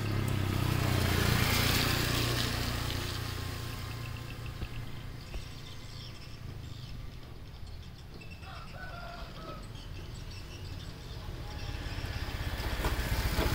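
A motor vehicle's engine passes, loudest a second or two in and then fading; another engine comes up near the end. A short bird call sounds about two thirds of the way through.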